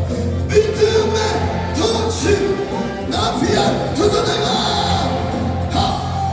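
Music with a singing voice over a steady low accompaniment.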